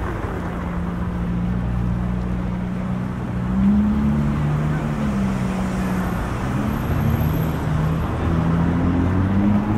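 City traffic: car engines running as cars pass on a cobbled street, a steady hum whose pitch wavers and climbs about four seconds in, when it is loudest, over a constant haze of tyre and street noise.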